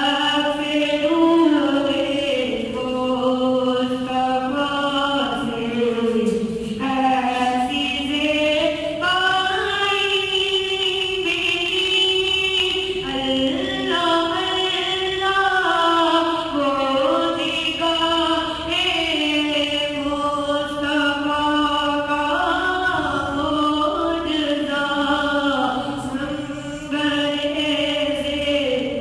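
A boy's voice reciting a naat, a devotional poem in praise of the Prophet Muhammad, chanted solo in a melody of long held, gliding notes.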